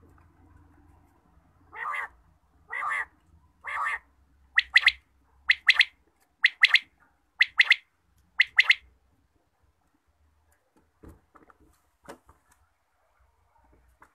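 Quail (batair) calling: three lower, rougher notes about a second apart, then five louder, sharper doubled calls at the same pace of about one a second.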